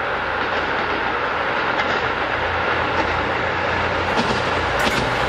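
KiHa 185 series diesel railcar approaching, its engine drone and wheel-on-rail noise slowly getting louder, with a few sharp clicks from the wheels near the end.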